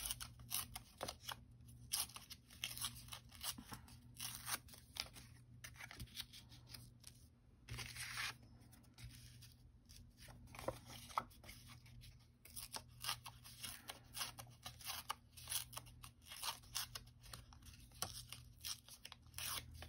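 Paper and cardstock being handled and pressed down on a cutting mat: faint rustling, light taps and short scrapes, with one longer scrape about eight seconds in.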